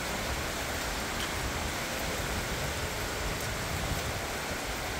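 Steady rain falling on wet stonework.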